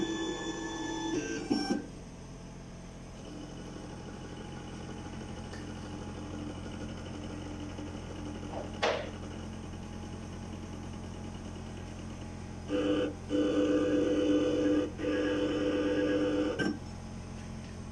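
Sirona inLab MC XL dental milling unit running its calibration cycle: a steady motor hum and faint whine, a single sharp click about nine seconds in, then a louder motor whine in three runs with short breaks near the end as the motors drive through the calibration.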